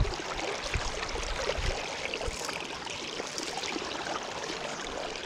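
River water flowing and rippling steadily past a wading angler, with a few low bumps in the first two seconds.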